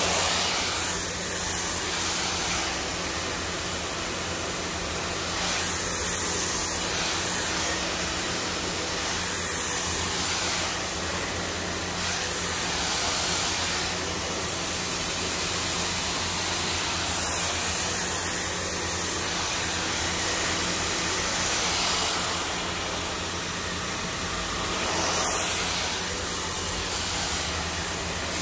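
Handheld hair dryer switched on and running: a steady rush of blown air over a low motor hum, swelling and easing a little as it is moved over the hair.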